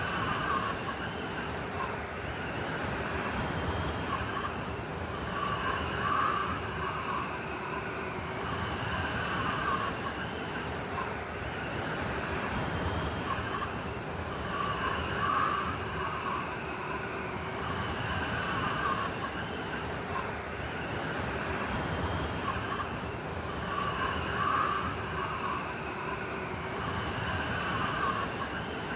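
Blizzard wind blowing steadily, with whistling tones that swell and fade about every nine seconds.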